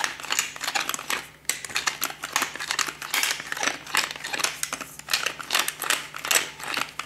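Hand-twisted stainless-steel pepper mill grinding peppercorns: a rapid, crackling run of grinding clicks in short repeated twists.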